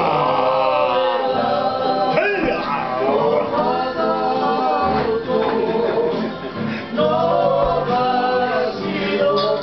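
A man singing a song over musical backing, holding long wavering notes.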